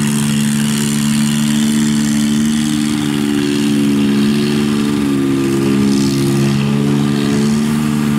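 Engines of a Kubota rice combine harvester and a tracked rice-sack carrier running together in a steady drone, their pitch shifting slightly now and then.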